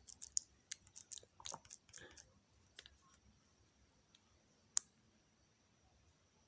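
A quick run of small clicks and taps for about two seconds, then one sharp single click near the end, over faint room tone.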